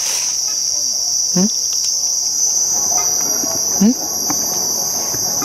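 A steady, high trilling of crickets. Twice, a short, low, rising call cuts in, which is taken for a tokay gecko (tắc kè) calling.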